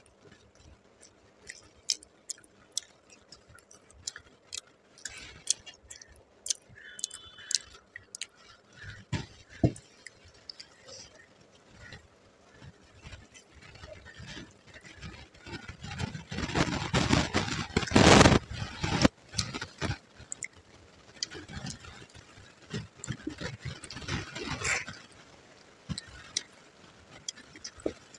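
Eating with the hand from a plate: scattered wet chewing and lip-smacking clicks, with a louder noisy stretch about two-thirds of the way through as the fingers mix rice on the steel plate.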